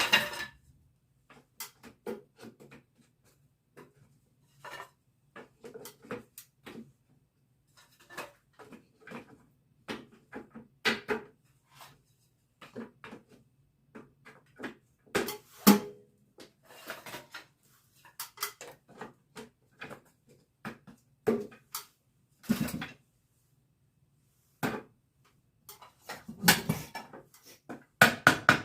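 Irregular wooden clacks and knocks as pieces of beehive frames are handled and fitted together, over a faint steady low hum.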